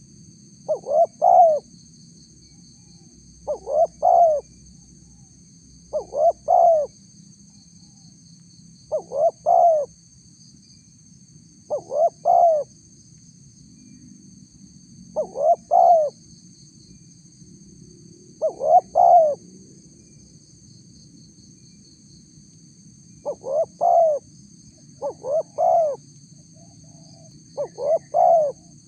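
Spotted dove (tekukur) cooing: a short phrase of two or three coos, repeated about every three seconds, ten times over, with a steady faint high hum behind it.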